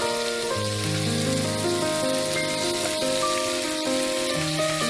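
Vegetables sizzling as they stir-fry in a hot pan, an even hiss under background music of long held notes.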